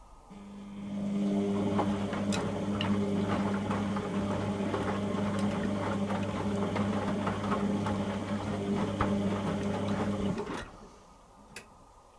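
Beko WTG620M1 washing machine running: a steady motor hum with scattered clicks and rattles starts, holds for about ten seconds and cuts off, followed by a single click.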